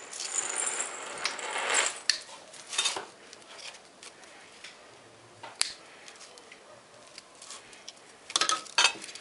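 Hand tools working at the copper winding inside a refrigerator compressor's steel stator: side cutters and a screwdriver scraping and snipping at the wire and its binding cords. There is scraping for the first couple of seconds, then scattered sharp metallic clicks and clinks, several in quick succession near the end.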